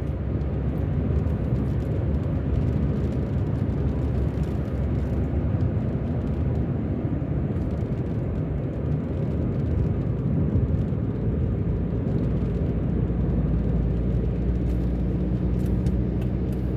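A car being driven: steady engine hum and tyre-on-road rumble.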